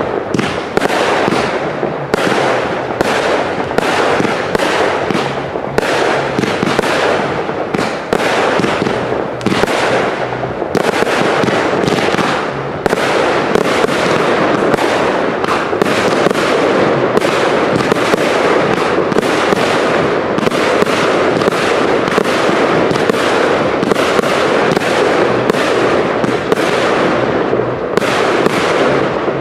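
Firework cakes firing in rapid succession: a loud, dense string of bangs, several a second, that runs together into a near-continuous barrage of launches and aerial shell bursts.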